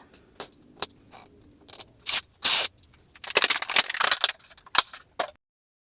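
Crinkling plastic wrap with small plastic clicks and rattles: a Disney Mini Brands capsule being unwrapped and opened by hand. The clicks come singly, with two longer stretches of crinkling in the middle, and the sound cuts off abruptly about five seconds in.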